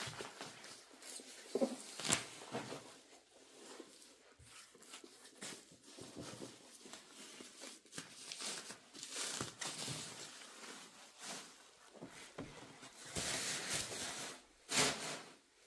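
Packaging being handled: irregular rustling and crinkling with light knocks, loudest near the end.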